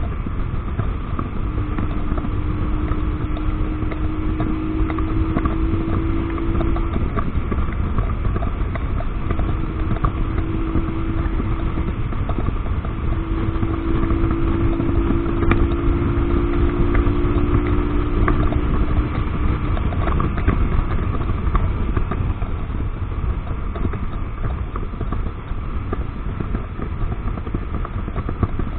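Wind rushing over the camera microphone of a Romet ADV motorcycle cruising at road speed, with the engine's faint hum at a steady cruise rising slightly in pitch a few times.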